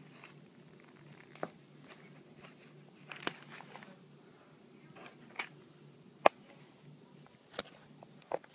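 Handling noise of a notebook and the phone filming it: scattered light taps, rubs and knocks, with one sharp click about six seconds in, over a steady low hum.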